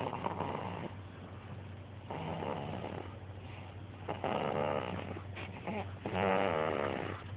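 A baby snoring: three rasping snoring breaths, about two seconds apart.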